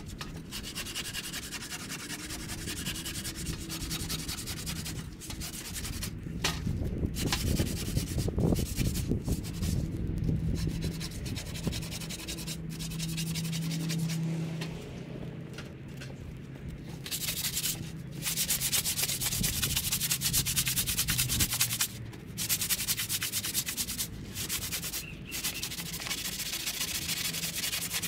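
A hand blade scraping along a peeled wooden walking stick in quick, repeated strokes to smooth the wood, with brief pauses between runs. By the end the stick is being rubbed with a sanding sponge. A low steady hum sits underneath through the middle.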